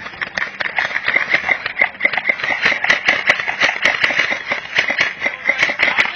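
Airsoft guns firing: a dense, uneven run of sharp clicks and snaps over a steady high hum.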